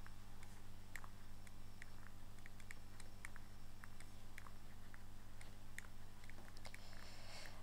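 Faint, irregular light clicks of a stylus tapping on a tablet screen during handwriting, a few per second, over a steady low electrical hum.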